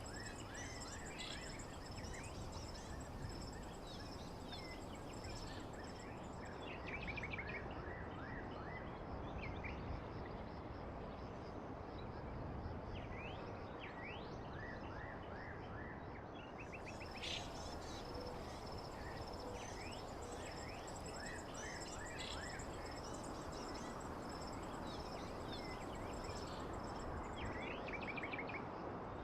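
Outdoor nature ambience: small birds chirping and trilling in short, repeated phrases over a steady background hiss, with a continuous high insect trill.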